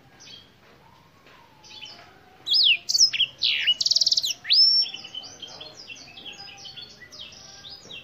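Black-throated canary singing: soft twitters, then a loud run of sweeping whistles and a fast buzzy trill a little before the middle, then quicker, softer twittering phrases.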